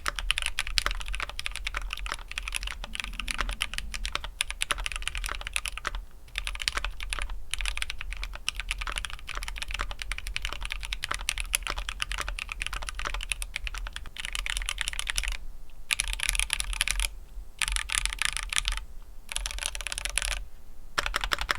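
Continuous fast typing on a stock Keychron Q5 mechanical keyboard with Gateron Brown tactile switches, a dense run of key clicks with a few brief pauses.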